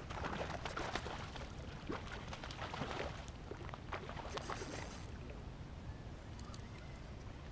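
A hooked fish thrashing at the surface close to the bank, making water splash. There is a cluster of sharp splashes over the first three seconds or so, a brief hissing splash around the middle, then it goes quieter.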